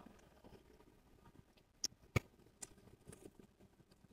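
Faint eating sounds: scattered small clicks and taps, with two sharper ones about two seconds in.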